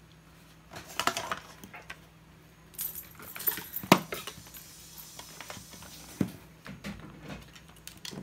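Power cord and plastic plug being handled, rattling and clattering in bursts, with a single sharp click about four seconds in. Near the end the plug is brought to a UPS outlet.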